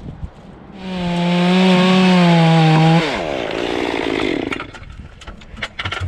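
Chainsaw run at full throttle for about two seconds, likely cutting through wood, then let off so the engine note drops quickly. A rougher sound follows, then a scatter of sharp clicks and knocks near the end.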